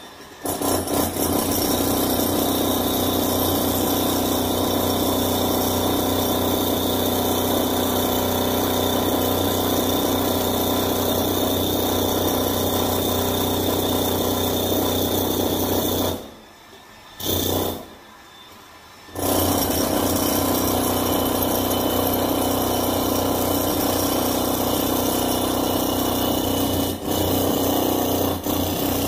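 Handheld jackhammer running steadily, breaking up concrete. It stops for about three seconds a little past halfway, with one short burst in the gap, then runs again, and pauses briefly near the end.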